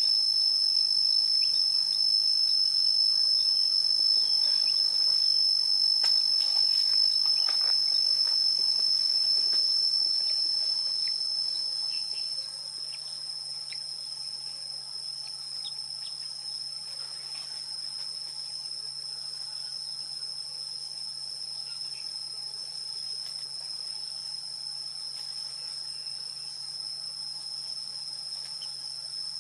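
Steady, continuous high-pitched insect trilling, like a chorus of crickets. It drops noticeably in level about twelve seconds in, when one of the tones stops, and then carries on evenly.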